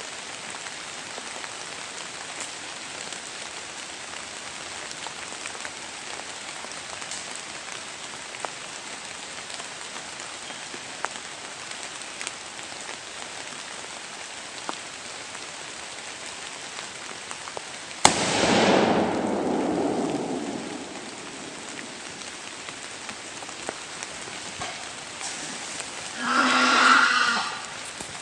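Steady hiss of rain, broken about 18 seconds in by a single gunshot whose report rolls away over a couple of seconds. A short pitched cry follows near the end.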